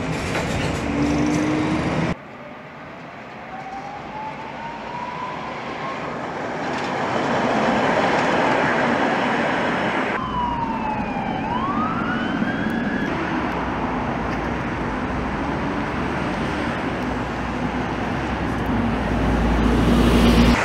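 Street traffic and tram noise. A few seconds in comes a slowly rising electric whine, and about ten seconds in a siren wails briefly, falling and then rising in pitch. Near the end a tram passing close by gives a low rumble.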